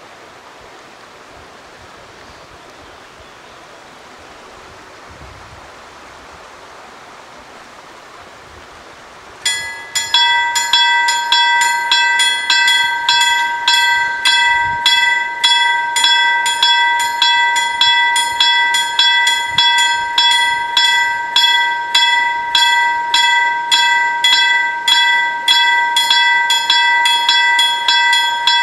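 Swedish level crossing's electric warning bells start ringing about nine seconds in, after a quiet background. They strike evenly about twice a second, each strike leaving a ringing bell tone. The bells warn road traffic that a train is approaching and the barriers are coming down.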